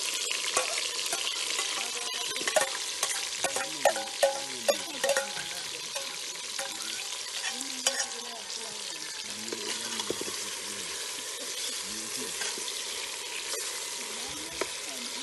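Chopped tomato, onion and scallion seasoning sizzling steadily in hot oil in a metal pot, stirred with a metal spoon that clinks against the pot several times between about two and five seconds in and again near eight seconds.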